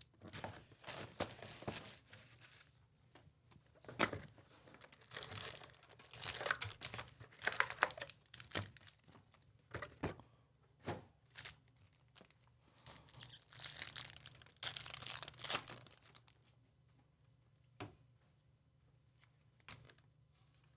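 Plastic and foil wrapping being torn off and crinkled while a 2023 Panini Chronicles Racing hobby box of trading cards and its packs are opened, in irregular rustling spells with a few sharp cardboard taps.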